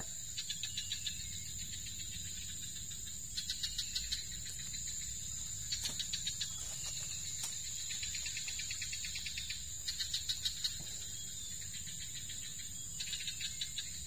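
Insects chirping in the undergrowth: a steady high-pitched drone, with short bursts of rapid, high chirping about every two seconds.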